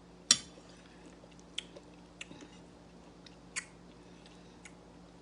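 Eating sounds from stewed fish head: a few sharp wet clicks and smacks, three of them louder, spaced a second or two apart, among fainter ticks.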